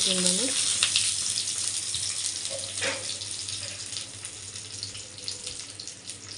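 Banana-leaf parcel of marinated fish sizzling as it goes into a preheated kadai. The sizzle is loudest at first and slowly dies down.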